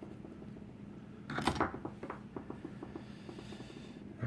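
Small metal clicks and a brief rattle from a padlock being handled: a cluster of clicks about a second and a half in, trailing off into a quick run of fainter ticks.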